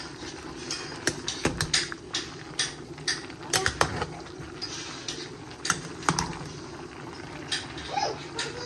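Metal spoon clinking and scraping irregularly against a metal pot as mixed vegetables are stirred, over a steady hiss.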